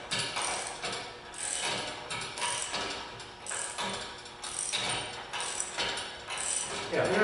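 Metal clicking and clanking from an engine hoist and its lifting chain, in a rough rhythm of about two clicks a second, as the hoist carries the engine's weight.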